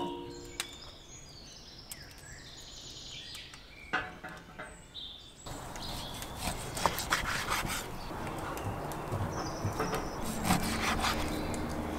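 Birds chirping for the first few seconds, then a kitchen knife slicing raw beef on a wooden cutting board: repeated rasping strokes of the blade through the meat and against the board.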